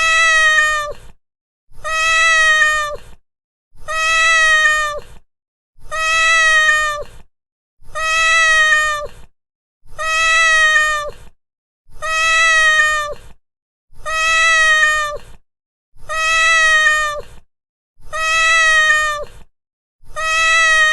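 Domestic cat meowing, the same meow repeated about every two seconds. Each call lasts about a second and drops in pitch at its end.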